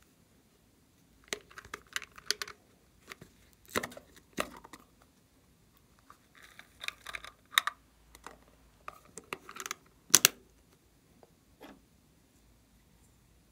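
Small plastic containers being handled: the lid of one clicked open and its flakes shaken out into a glass dish, giving irregular sharp clicks, taps and short rustles, the loudest a quick double click near the end.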